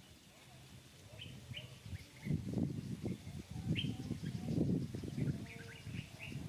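Short high chirps repeated every second or so. From about two seconds in they sit over loud, irregular low rustling or knocking noise.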